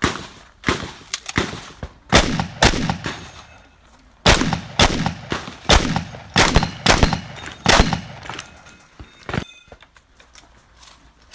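A 12-gauge shotgun firing a rapid string of about a dozen shots at practical shooting targets, in two bursts with a pause of about a second and a half between them, each shot trailing off in a short echo, with faint ringing between the later shots.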